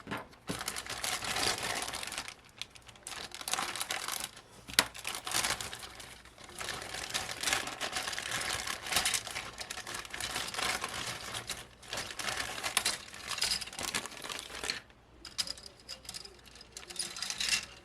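Plastic model-kit parts being handled: crinkling of the plastic bags and light clicking and rattling of the plastic parts trees, with a sharper click about five seconds in.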